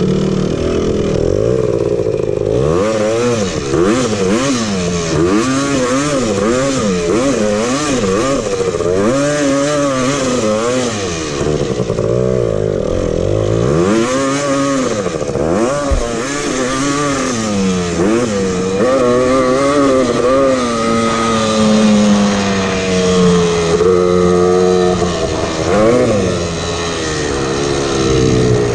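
Honda TRX250R's single-cylinder two-stroke engine under riding load, its revs rising and falling about once a second, then holding a steadier pitch for a few seconds before a final rev near the end.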